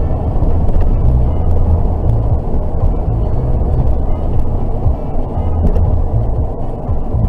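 Steady low road and engine rumble of a car driving, heard from inside the cabin, with a few faint clicks.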